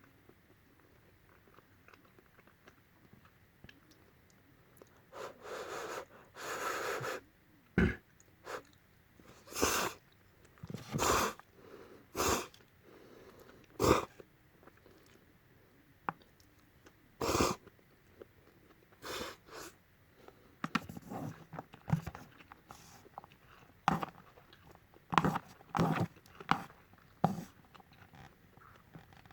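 Close-up mouth sounds of someone eating Peyoung instant yakisoba noodles. After a few quiet seconds come two longer sucking slurps, then separate loud slurps every second or two, then quicker smacking and chewing near the end.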